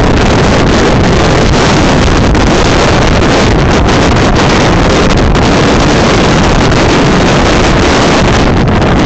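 Storm-force wind of over 80 mph blasting across the microphone, a loud, continuous rush of wind noise that overloads the recording.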